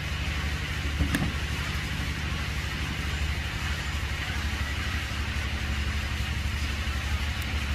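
A steady low engine rumble, running evenly under a constant hiss, with one short click about a second in.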